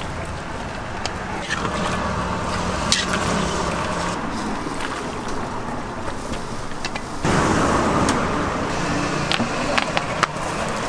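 Roadside traffic noise with occasional clinks of metal utensils. The background gets louder about seven seconds in.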